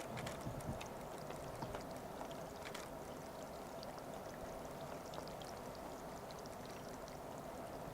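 Steady trickling, pouring water sound of the estuary, with many faint scattered clicks and ticks over it.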